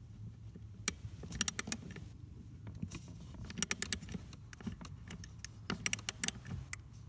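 Ratchet clicking in several short bursts of quick metallic clicks as the 10 mm nut holding the gas pedal assembly is undone.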